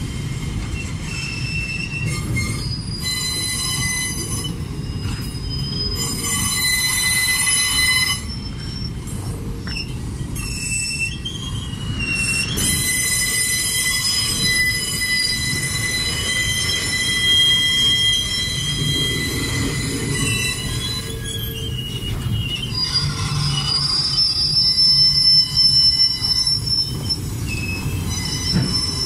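Freight train of open steel wagons rolling past on a curve, its wheels squealing on and off in several shifting high-pitched tones over a steady low rumble.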